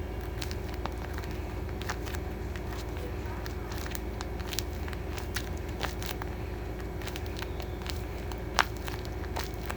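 Scattered light clicks and crackles from the blind-bag packaging and its contents being handled, one sharper click near the end, over a steady low background hum.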